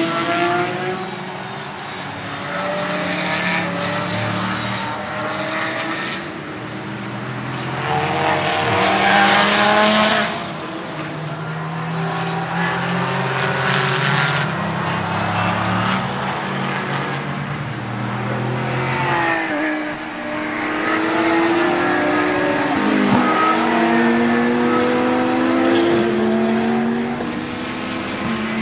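GT racing cars passing one after another at speed, their engines rising and falling in pitch through gear changes. The loudest pass comes about ten seconds in.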